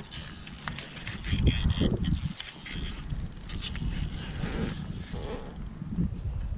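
Fishing reel being cranked, a mechanical ratcheting whir, over low rumbling.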